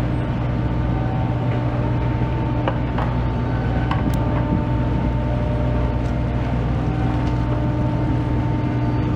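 Steady drone of a passenger ferry's engine running, with a few faint clicks around the middle.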